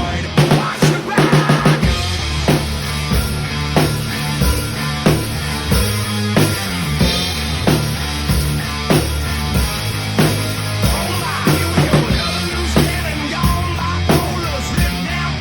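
Drum kit played along with a hard rock track. A quick run of hits comes in the first couple of seconds, then a steady beat of kick and snare over the song's bass and guitars.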